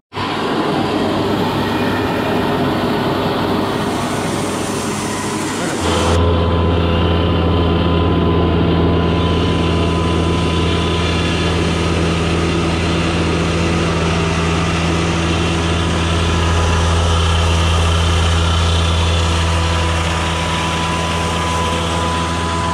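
Chaiyo ProPlus electric rice mill, driven by a 3.5 hp motor, running with grain passing through, heard as a steady noisy hiss. About six seconds in it changes abruptly to a steadier low motor drone, as of the mill's grinding attachment running.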